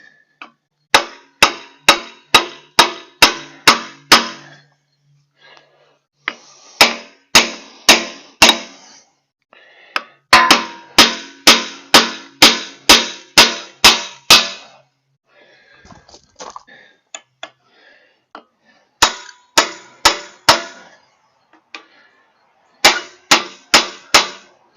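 Hammer blows on metal driving a log splitter's hydraulic cylinder end cap down into the barrel, past the snap-ring groove. The blows come in five quick runs of about three a second, each strike ringing.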